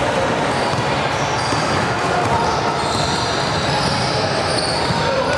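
Basketball game in a large, echoing gym: a ball bouncing on the hardwood floor and short high sneaker squeaks over a steady din of voices.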